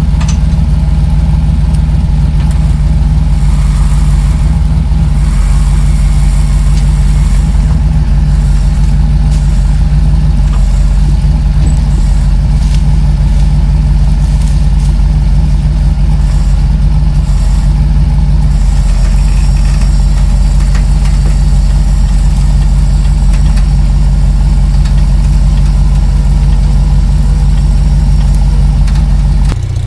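Off-road 4x4's engine running steadily at low revs, loud and close, with no change in pitch throughout.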